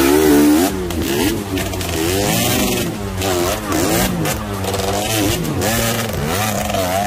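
Off-road dirt bike engine revving up and falling back over and over, roughly once a second, as the rider works the throttle to claw up a steep rocky trail.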